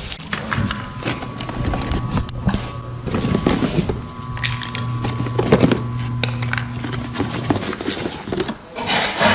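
Repeated knocks and clicks of gaming-chair parts being handled and set down for assembly, over a steady low hum.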